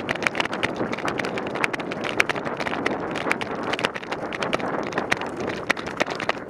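A person running hard across grass in airsoft gear: quick, irregular thuds and rattles of footfalls and gear, over a loud rushing noise of wind on a body-worn microphone.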